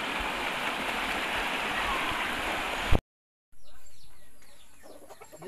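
Steady rushing of a shallow, clear river stream. It cuts off abruptly about three seconds in, and after a brief silence only a quiet, fading background remains.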